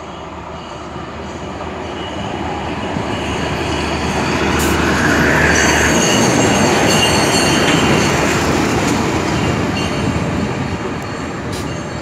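Yellow overhead-line maintenance rail vehicle passing close by: engine hum and the rumble of steel wheels on the rails swell to a peak about halfway through, with a brief wheel squeal, then fade as it moves away, a few sharp clicks near the end.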